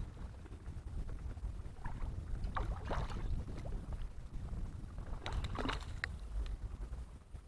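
A small hooked bass splashing at the water's surface beside a kayak as it is reeled in and lifted out, in two splashy spells about two and a half and five and a half seconds in. A low wind rumble on the microphone runs underneath.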